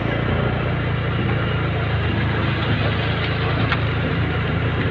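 Motorcycle engine running steadily at an even, low pitch under a constant rush of road and wind noise.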